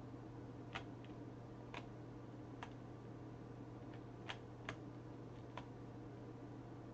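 Scattered single clicks of computer controls, about seven at uneven intervals, over a steady low hum.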